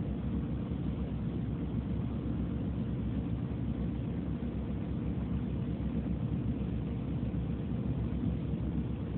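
Steady low rumble of a city transit bus's engine and drivetrain with road noise, heard from inside the passenger cabin as the bus travels.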